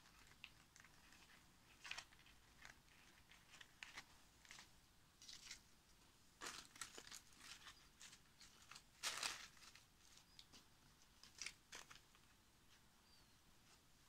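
Faint, scattered rustling and crinkling of dry leaves, papery physalis husks and newspaper as they are handled and set in place, the loudest crackle about nine seconds in.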